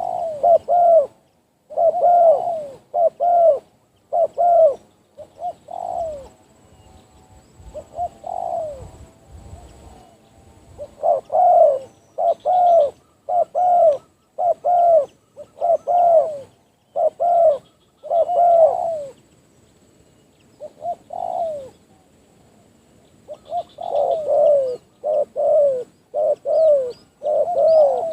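Spotted dove (tekukur) cooing: repeated series of short, falling coos, broken by pauses of a few seconds. Faint higher chirps of small birds come and go.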